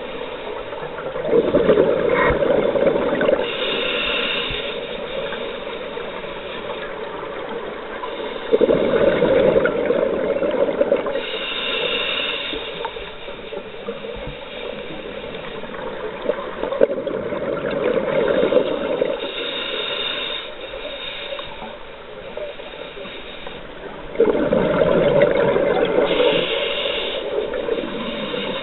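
Scuba diver breathing through an open-circuit regulator, heard underwater: four breath cycles about seven to eight seconds apart, each a two-to-three-second rush of exhaled bubbles followed by a short hiss of inhaling through the regulator.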